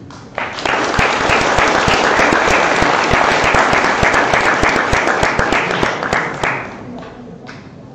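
Audience applauding after a talk ends. The clapping starts about half a second in and dies away about six and a half seconds in.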